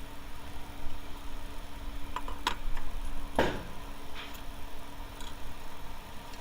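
Scattered sharp clicks of tools working on the engine's spark plugs, with one louder clatter about three and a half seconds in, over a steady hum.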